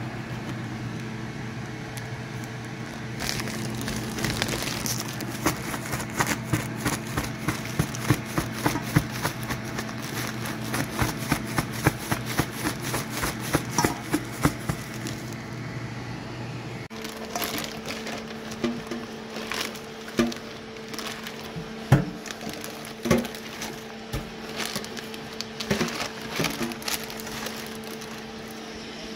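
Zip-top plastic bag crinkling and rustling as fish fillets are shaken in cornmeal breading: a quick, dense run of crackly strokes through the first half, then scattered crackles and taps. A steady hum lies underneath and changes about halfway through.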